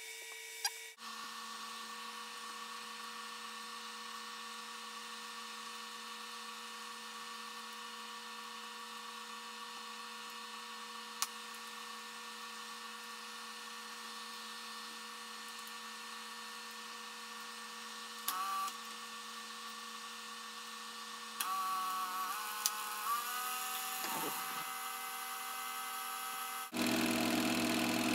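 Bell & Howell 253A 8mm film projector's motor running with a steady hum, switched on about a second in. A few clicks and a change in its pitch come about two-thirds through, and near the end it runs clearly louder and fuller as the projector runs with the lamp lit.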